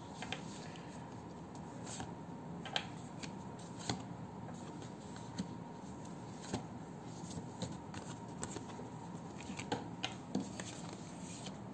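Tarot cards being dealt from a deck and laid out on a table by hand: soft, irregular taps and slides, about one a second, as each card is drawn and set down.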